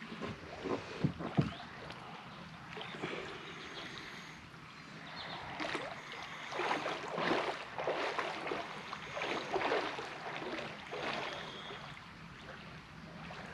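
Water splashing and lapping against a boat, in irregular swells that are loudest in the middle, with a few sharp knocks in the first second and a half.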